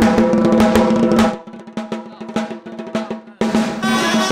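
A live rumba band starting a song: a drum roll and percussion over a held note, thinning to scattered hits about a second and a half in, with the full band coming back in near the end.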